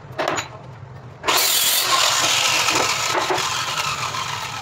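Handheld electric circular saw switched on about a second in and run through laminated plywood, a loud motor-and-blade noise that slowly fades. A couple of light knocks come before it.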